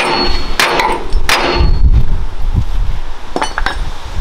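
Hammer blows on steel: three hard clanging strikes in the first second and a half, then two lighter ones about three and a half seconds in, knocking a heated bolt on a Ford twin I-beam control arm mount into line. Heavy wind buffets the microphone.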